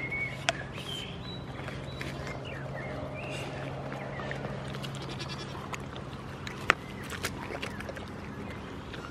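Goats bleating while being hand-fed, with a few sharp clicks as they bite at the fruit.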